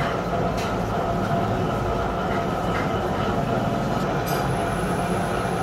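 Gear hobbing machine running, its hob cutting helical teeth into a gear blank, a steady mechanical grinding drone. A thin high whine joins in about four seconds in.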